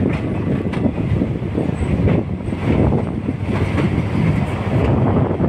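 Third-class railway carriage running over the tracks, its wheels clacking over rail joints and points, with a steady rumble and wind on the microphone.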